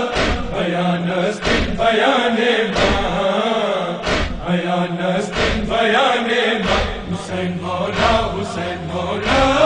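Noha, a Shia lament, chanted by a male reciter, with a regular beat of sharp strikes about once a second or so.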